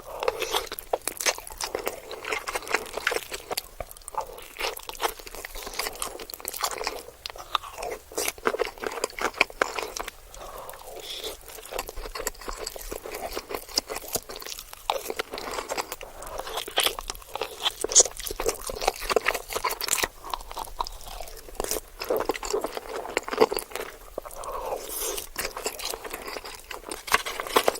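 Close-miked chewing of macaroni and cheese, a dense, irregular run of mouth clicks and crunches.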